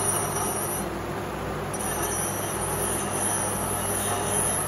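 A machine running steadily, a constant low hum under a rushing noise.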